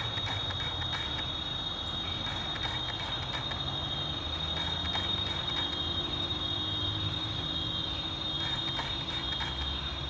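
Steady high-pitched insect chorus at dusk, one unbroken shrill tone over a low background rumble.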